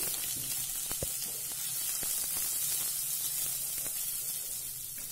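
Sliced onions sizzling steadily in hot oil in a nonstick pan as they are sautéed and stirred with a wooden spatula, with a few light taps of the spatula against the pan.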